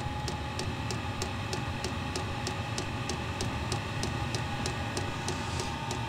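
Diesel heater burner running on the bench: the fuel dosing pump ticks steadily about four times a second over the steady whir of the combustion blower fan, with a thin steady whine.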